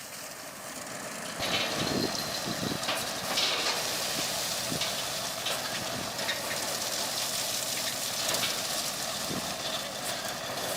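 Heavy dump truck's diesel engine running, with a steady rough rushing noise that comes in sharply about a second and a half in.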